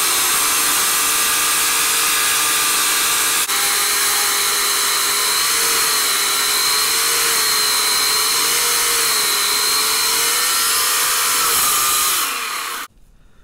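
Portland 14-inch corded electric chainsaw running and cutting into a wood block, a steady motor whine whose pitch wavers as the chain meets the wood, with a brief drop about three and a half seconds in. Near the end the trigger is released and the motor spins down to a stop. It is a 9-amp saw that the carver finds lacks the power and chain speed to carve.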